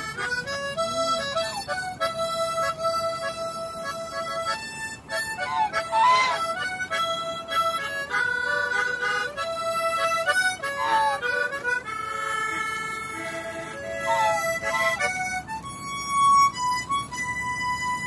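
Harmonica played solo: a slow melody of held chords that shift every second or so. A few short swooping sounds cut in over the playing.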